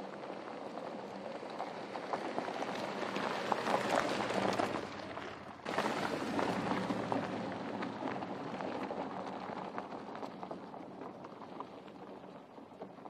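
Tyres crunching and crackling over loose gravel as a 2019 Porsche Cayenne Turbo drives a dirt track, its twin-turbo V8 running steadily underneath. The noise builds, breaks off briefly about five seconds in, comes back loud and then fades as the car drives away.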